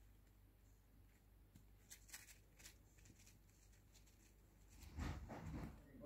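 Near silence: quiet room tone with a few faint ticks about two seconds in, then a louder muffled sound starting about five seconds in.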